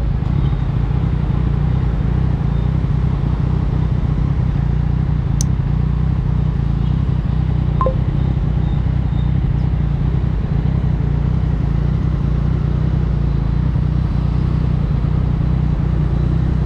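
Yamaha MT-09's three-cylinder engine breathing through an Akrapovic exhaust, running steadily at an even, unchanging engine speed. A single sharp click about five seconds in.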